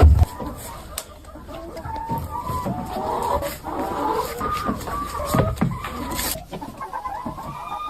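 A flock of chickens clucking, with many short overlapping calls and a few scattered clicks and knocks.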